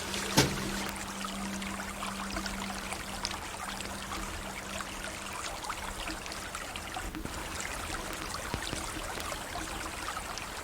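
River water flowing, a steady babbling rush with small splashes. A low held note of ambient music fades out over the first few seconds.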